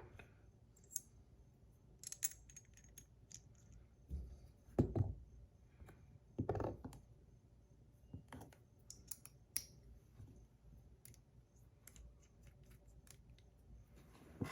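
Faint, scattered clicks and light metal taps of small metal buttons being handled, taken off and fitted on a fidget toy, with a few soft thuds around five and six and a half seconds in.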